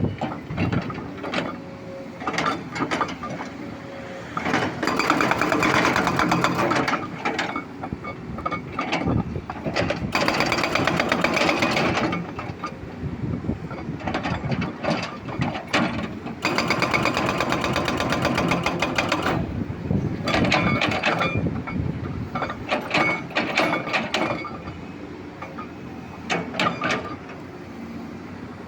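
Excavator running and working: engine noise mixed with rapid metallic rattling and clanking, which swells in two longer loud stretches and drops back in between.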